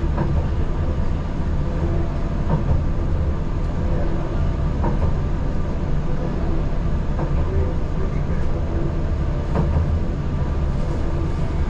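Ride noise inside a Utsunomiya Light Line tram running along its track: a steady low rumble of wheels and running gear, with faint clicks about every two and a half seconds.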